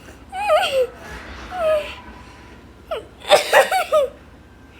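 A person laughing so hard she wheezes, in three breathy, squeaky bouts, the loudest about three seconds in.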